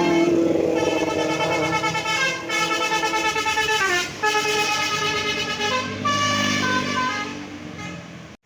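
Bus 'telolet basuri' musical horn playing a tune: a run of horn notes stepping up and down in pitch, with a quick downward slide about four seconds in, fading away in the last second.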